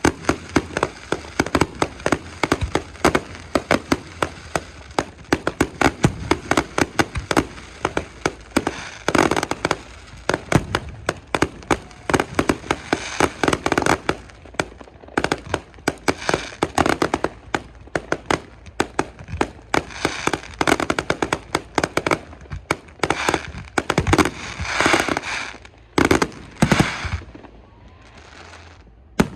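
Fireworks display: a rapid, near-continuous barrage of bangs and crackling that thins out to a few separate bangs near the end.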